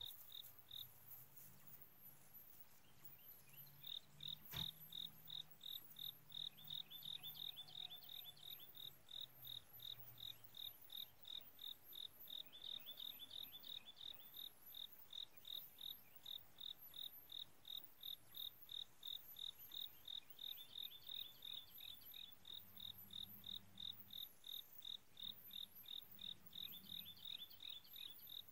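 Crickets chirping steadily and faintly, a rhythmic pulse of about two or three chirps a second, with softer falling trills joining now and then. A single sharp click sounds about four and a half seconds in.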